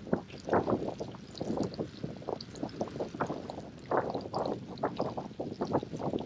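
Wind buffeting the microphone of a camera on a moving bicycle, in irregular gusts.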